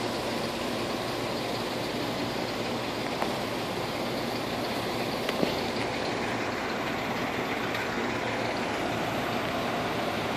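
Steady, even noise of vehicles in a busy car park, with a few short clicks, the sharpest about five seconds in.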